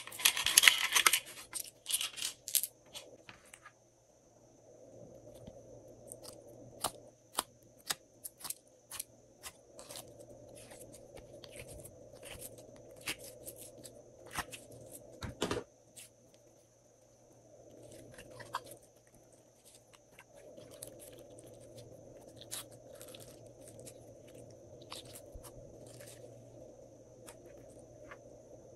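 Sticky slime being squeezed and peeled out of plastic molds by hand, making a run of clicks, pops and crackles. They are densest and loudest in the first two seconds or so, then come as scattered snaps over a faint steady hum.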